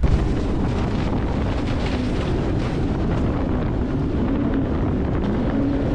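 Boat running under power: a steady engine drone with a faint wavering tone, mixed with heavy wind buffeting the microphone.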